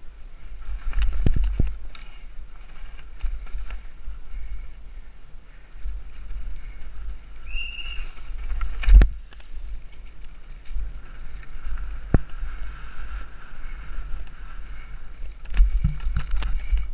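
Downhill mountain bike riding fast over a rough, leafy dirt trail, heard from a helmet camera: wind rumbling on the microphone, with the rattles and sharp knocks of the bike hitting roots and bumps, the loudest about nine seconds in. A brief high squeal sounds just before that knock.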